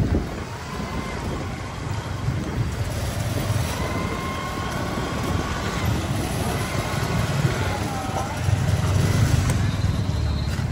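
Motorbike engines running at low speed with a steady low rumble of wind and road noise, growing louder about eight seconds in.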